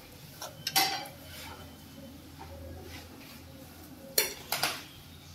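Steel spoon scraping and clinking against a kadai and a steel plate while scooping chicken filling onto a roti: a few clinks about a second in, then two sharper clinks near the end.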